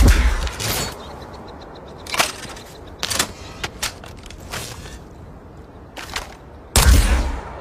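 Resonator weapon sound effect firing: sharp gunshot-like blasts with decaying tails, heavy ones at the start and near the end and smaller cracks between.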